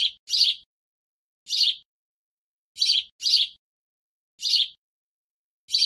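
Short, high bird chirps repeating in a fixed pattern of a quick pair then a single chirp, the cycle recurring about every three seconds, with dead silence between them rather than any outdoor background. It sounds like a looped bird-chirp track.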